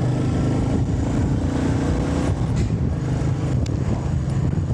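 Motorcycle engine running steadily while riding, with wind rushing over the microphone. There is a brief click about three and a half seconds in.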